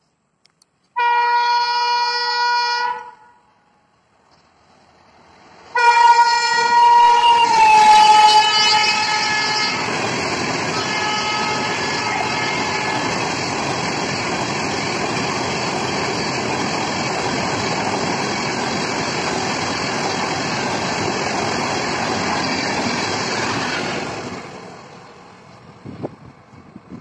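Indian Railways WAP-7 electric locomotive sounding its horn twice, a short blast and then a longer one that drops in pitch as the locomotive passes, followed by the loud, steady rush and rattle of an express train's coaches going by at speed. The noise fades away a few seconds before the end.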